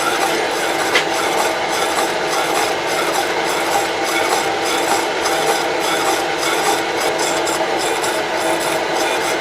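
Slitting saw blade cutting a slot in a steel part under slow, steady feed: a continuous rasping cut with a regular pulse about three times a second.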